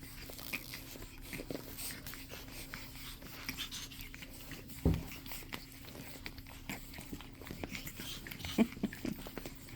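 Pug puppies moving about and making small noises up close: scattered light clicks and rustles, one thump about five seconds in, and a few short low squeaks near the end.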